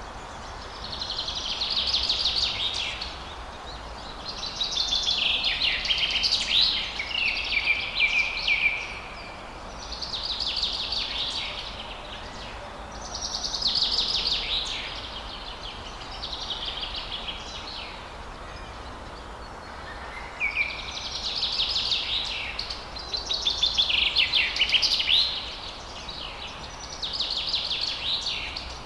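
Songbird song: a series of rapid-note phrases, each two to three seconds long, repeated every few seconds over a steady faint background hiss.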